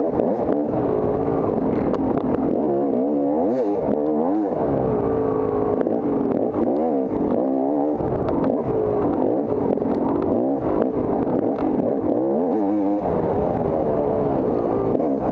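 Off-road dirt bike engine revving up and falling back over and over, its pitch climbing and dropping every second or two as the rider works the throttle through the course.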